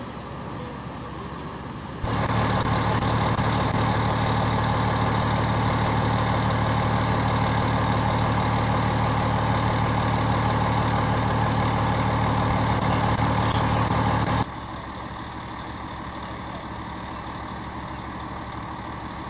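A heavy vehicle's engine idling steadily close by, a low even hum; it comes in abruptly about two seconds in and cuts off abruptly about twelve seconds later, leaving a quieter steady engine-and-road background.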